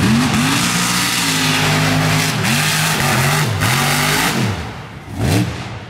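Big-engined mud truck, a vintage Ford pickup, revving hard through deep mud. The engine pitch climbs and falls again and again over a loud rush of noise, then drops away after about four and a half seconds, with one last short rev near the end.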